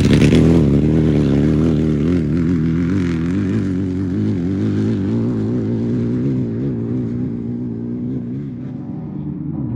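Off-road race vehicle's engine going by close, then moving away, its pitch wavering with the throttle and slowly fading.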